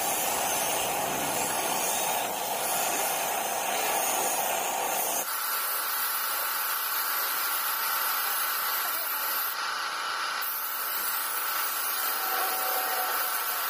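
Gravity-feed paint spray gun hissing steadily as compressed air atomises paint onto a car's fender. The hiss changes character abruptly about five seconds in.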